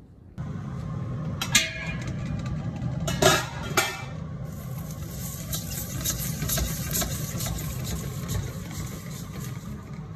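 Lamb pieces sizzling in a hot stainless-steel pot over a steady low hum, with a few sharp knocks in the first four seconds.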